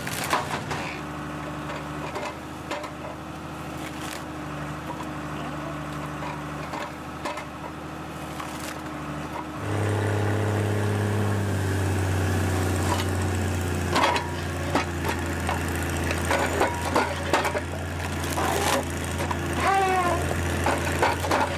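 Engine of a heavy tree-cutting machine running steadily, then getting louder about ten seconds in as it works harder, with scattered cracks and knocks of wood. A brief squeal comes near the end.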